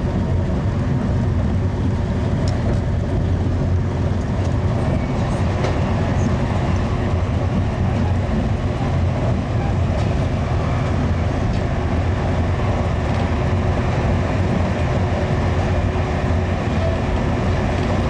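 Steady low rumble of a passenger rail coach running at speed, heard from inside the car: wheels on rail and running noise of an Amtrak Amfleet I coach.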